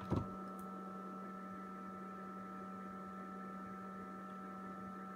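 A sharp click near the start as a TP-Link TL-PA211 powerline adapter is plugged into the wall socket, then a steady electrical hum carrying a few fixed tones.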